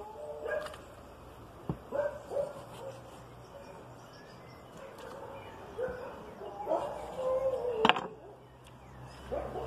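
Background animal calls: a few short, wavering, drawn-out cries recurring every couple of seconds. There is a faint knock early on and a sharp knock just before the end, the loudest sound here.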